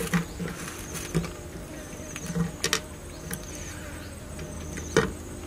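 Insects chirping steadily in a high, pulsing trill, with scattered sharp clicks and knocks, the loudest about five seconds in.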